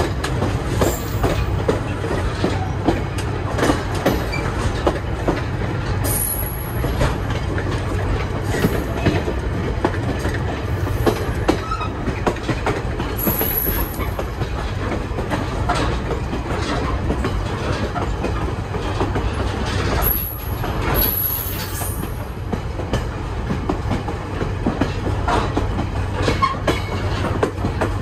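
Passenger train rolling along the track, heard from aboard a coach: a steady low rumble with frequent wheel clacks and knocks, and a few brief high-pitched wheel squeals.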